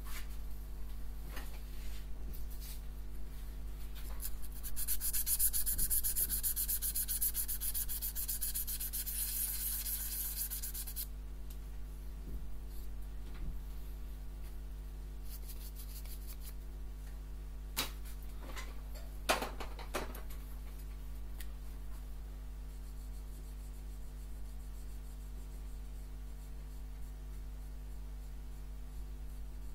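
Abrasive rubbing across a freshly engraved stainless steel plate, loudest for about six seconds, then a couple of sharp clicks. A steady low electrical hum runs underneath.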